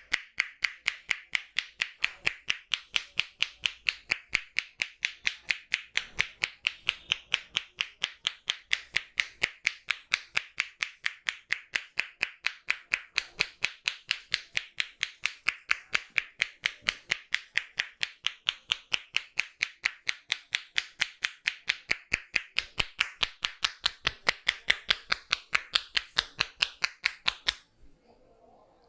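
Percussion massage: the barber's hands strike the client's body in a fast, steady rhythm of about four slaps a second. The strikes stop abruptly near the end.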